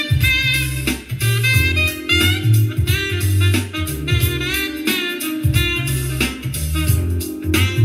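Instrumental music playing through a portable Bluetooth speaker: a repeating bass line under a wavering lead melody.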